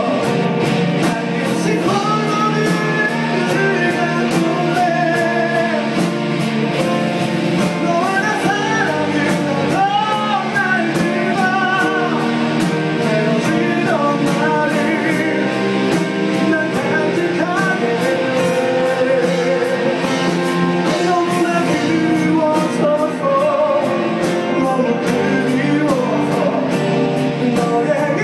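Live band playing a song: a male voice singing a wavering melody into a microphone over acoustic and electric guitars, with a steady beat.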